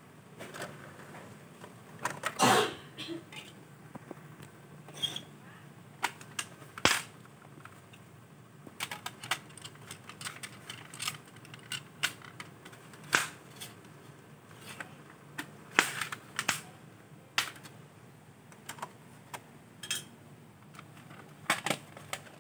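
Irregular sharp plastic clicks and knocks of a CD jewel case and video CD being handled: a disc pressed off its centre hub and the case clattering, opening and shutting.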